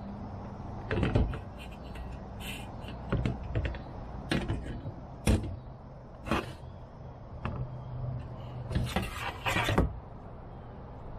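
Stiff black plastic panel being handled and pressed along its edge, giving a string of sharp plastic clicks and knocks, with a quick cluster of them near the end, over a steady low hum.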